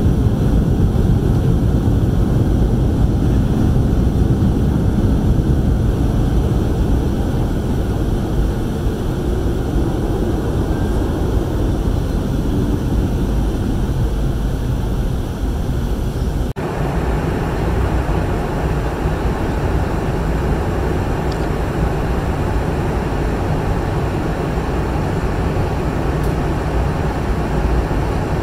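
Steady airliner cabin noise inside a Boeing 717 in flight: the rumble of the tail-mounted Rolls-Royce BR715 engines and airflow over the fuselage, heaviest in the low end. About 16 seconds in the sound drops out for an instant and comes back a little brighter.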